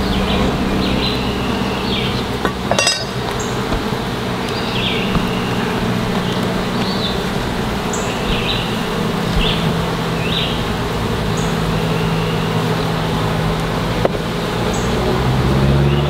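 Honeybees buzzing around an opened hive, a steady low hum, with a sharp knock about three seconds in and short high chirps over it.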